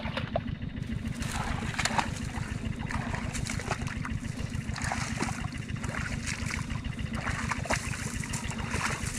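Water splashing and trickling in short irregular strokes, over a steady low rumble.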